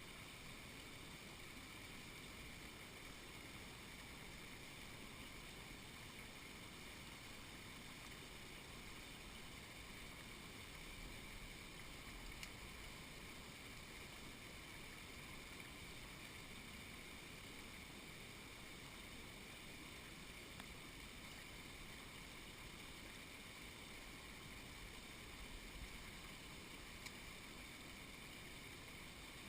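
Mountain torrent rushing steadily, a faint even wash of water noise.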